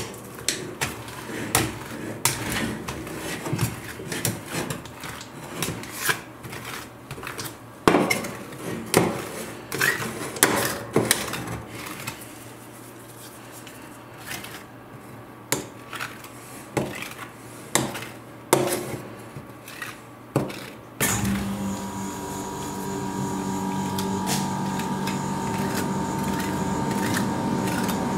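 Flat metal spatulas scraping and tapping on a steel ice cream cold plate as the ice cream base is chopped, mixed and spread thin: many sharp clicks and scrapes. About three-quarters of the way through, a steady hum comes in and slowly grows louder under fewer scrapes.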